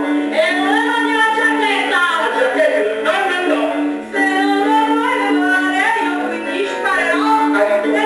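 Music: singing over steady instrumental backing, in a comic Neapolitan song performed as a duet.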